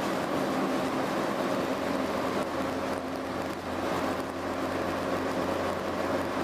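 Cabin sound of a London Transport RF-class AEC Regal IV single-deck bus under way: its underfloor diesel engine drones steadily with road noise, and a deeper hum grows stronger about halfway through.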